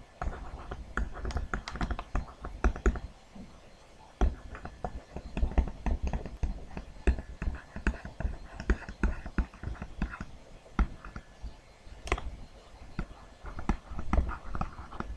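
Plastic stylus tapping and scratching on a tablet computer screen while writing by hand: a dense, irregular run of small clicks and taps.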